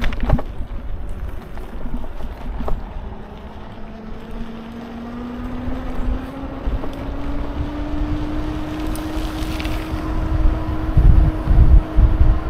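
A motor's tone rising gradually over a few seconds, then holding steady, with wind rumbling on the microphone, most strongly near the end.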